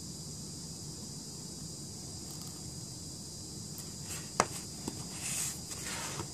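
Cardboard product box handled and turned in the hand: a sharp tap about four seconds in, a lighter one just after, and a brief rubbing of fingers on the box, over a steady hiss.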